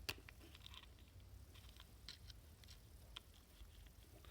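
Faint small clicks and ticks of a screwdriver prying at a plastic key fob shell to split its two halves, with one sharper click right at the start.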